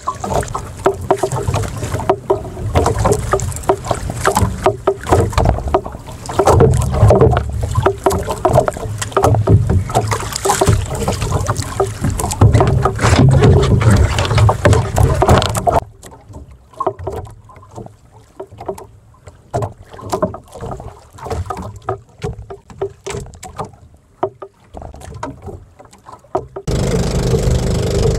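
Wind buffeting the microphone and water slapping against a small outrigger boat on choppy sea. About 16 seconds in it drops abruptly to a much quieter stretch with scattered clicks and knocks. It jumps back up loud near the end.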